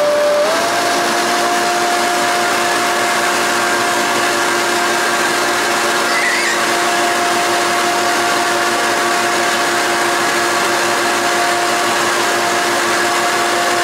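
Leaf blower running flat out, blowing air with a steady whine. Its pitch settles a little higher about half a second in, then holds.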